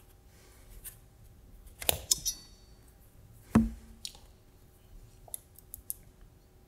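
Workbench handling sounds as a printed circuit board is laid down on a cutting mat and a soldering iron is taken up. A few quick clinks with a brief ringing come about two seconds in, a single louder knock follows about a second and a half later, then light clicks as a resistor's leads are fitted into the board.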